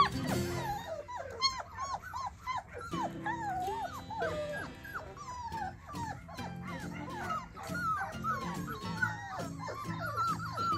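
Four-week-old Bernedoodle puppies whining and yipping: many short, high, rising-and-falling whimpers overlapping one another, with background music under them.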